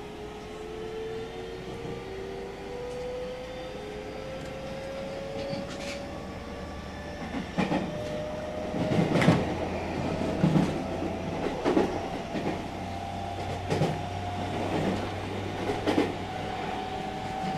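Onboard running sound of a JR Central 313 series electric train: the traction motors' whine slowly rises in pitch as the train gains speed, and from about halfway through the wheels clack over rail joints at a regular pace.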